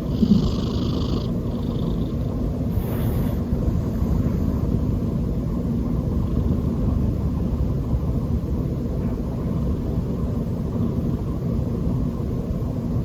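A sleeping domestic cat snoring close to the microphone: a steady low rumble.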